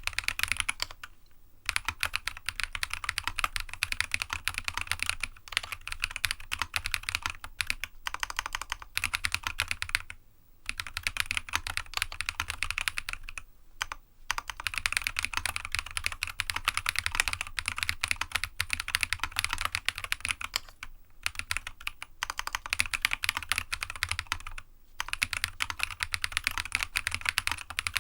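Continuous fast typing on a GEONWORKS F1-8X custom mechanical keyboard with Jade Black switches, a polycarbonate sandwich plate and PBT keycaps: a dense run of key clicks broken by a few short pauses. It has a clacky sound that the owner likens to a typewriter.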